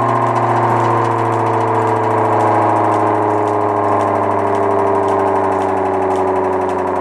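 Motor-driven air raid siren running at speed: a very loud, steady chord of several tones from its spinning rotor. The pitch sags slightly in the second half.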